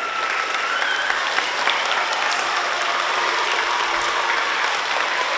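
A large audience of schoolchildren applauding in a big hall, the clapping swelling up just before and then holding steady.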